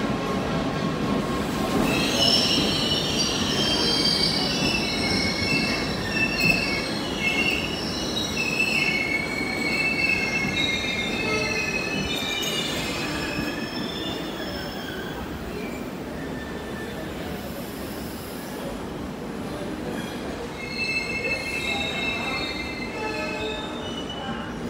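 Passenger coaches of an Indian Railways express rolling slowly past as the train departs, their wheels squealing in high, wavering screeches over a low steady rumble. The squeal is strongest through the first half and returns near the end.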